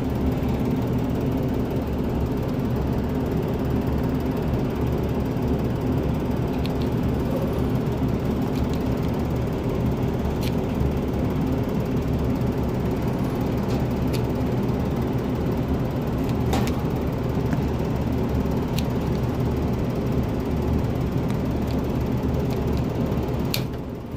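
Steady low machine hum, with a few faint separate clicks as a stiff condensate drain pipe is cut by hand. The hum dips briefly near the end.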